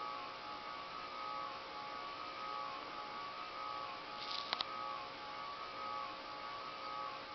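Windsor & Browne Casablanca Mercury copy ceiling fan running with a steady high-pitched buzz over its motor hum, a buzz whose cause the owner does not know. Two or three quick clicks about four and a half seconds in.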